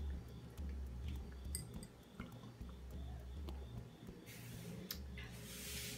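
A person sipping a drink from a glass held to the mouth, with faint small clicks and two short hissy sounds about four and five and a half seconds in.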